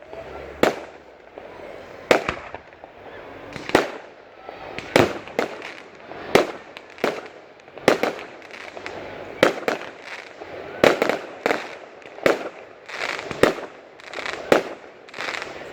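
Fireworks going off in a steady run of sharp bangs, about one a second, with crackling and fizzing between them.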